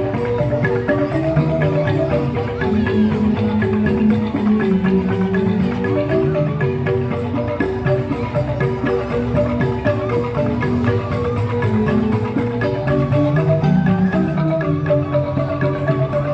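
Joged bumbung gamelan music: bamboo xylophones (grantang) playing fast, continuous interlocking note patterns.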